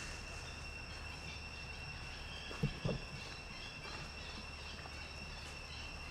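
A steady high-pitched insect drone, like crickets, with a low hum underneath and two quick knocks close together near the middle.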